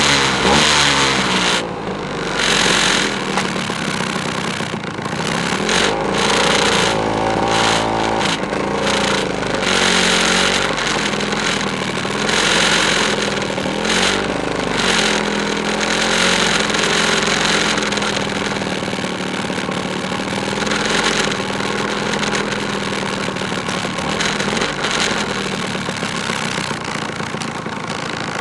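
Several two-stroke motor scooter engines running and revving as a group rides off, their pitch rising and falling with loud surges every second or two, settling toward a steadier note in the later part.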